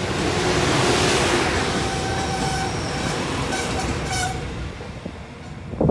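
Passenger train passing close by: a loud rush of wheels on rail with a steady whine from the train's machinery, fading away over the last couple of seconds. A short thump comes near the end.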